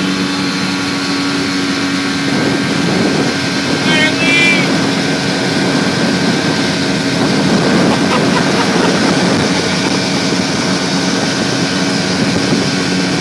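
Outboard motor of a small open boat running steadily at high throttle, its drone held under a dense rush of wind and water. A brief high-pitched shout cuts in about four seconds in.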